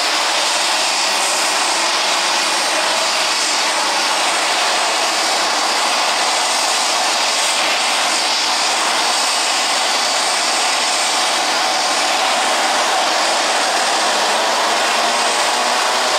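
Twin turboprop engines of a small commuter airplane running loud and steady, with a high turbine whine and propeller noise, as the plane turns and lines up at the end of the runway. Near the end a faint tone drifts in pitch over the steady noise.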